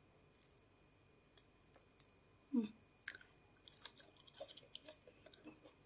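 Faint crackling of a crisp, deep-fried Thai tod man fritter being torn apart by hand, with scattered small clicks and a denser run of crunchy crackles about four seconds in. A short hum of a voice about two and a half seconds in.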